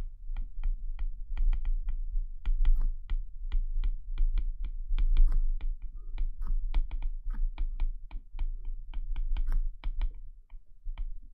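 Stylus tip tapping and clicking on a tablet's glass screen while words are handwritten: an irregular run of sharp ticks, several a second, with short gaps between words.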